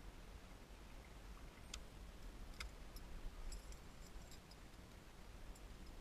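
A few faint, sparse clicks and ticks from a fishing rod and reel being handled during casting and retrieving, over a low rumble of wind on the microphone.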